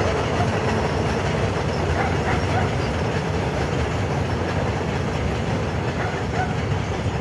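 Freight train of covered boxcars rolling past at a steady speed: a continuous rumble of wheels on the rails.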